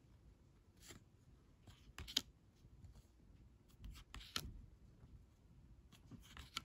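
Faint, scattered rustles and soft clicks of baseball trading cards being handled and flipped one by one, about half a dozen short strokes with the sharpest a little after two seconds in.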